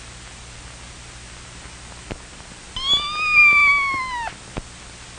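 A cat gives one long meow, about a second and a half, that rises slightly and then falls away. There is a faint click shortly before it and another just after.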